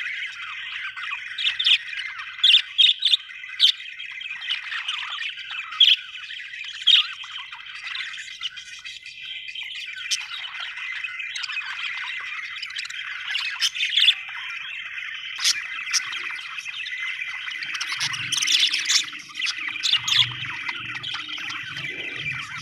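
Budgerigars warbling and chattering without a break, with frequent short, sharp chirps and squawks standing out above the chatter.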